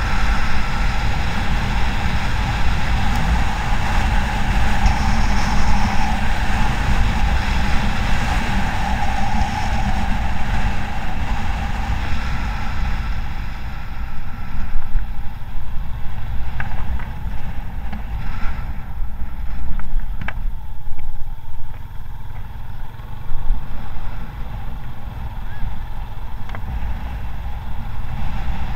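Wind buffeting an action camera's microphone while riding along a paved road, a steady low rumble with surging loudness.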